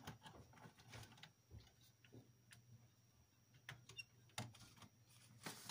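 Faint, scattered clicks and knocks of hands handling a DVR circuit board and its cables on a workbench, over a low steady hum.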